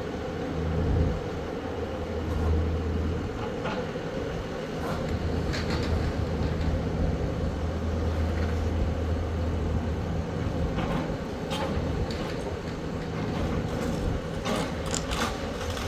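Demolition excavator's diesel engine running steadily, with scattered cracks and crunches of brick and debris as the building is torn down.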